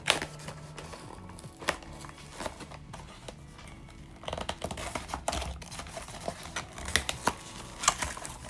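A cardboard blind box and its foil bag being handled and opened, with sharp clicks of packaging early on and thick crinkling and tearing of foil from about halfway.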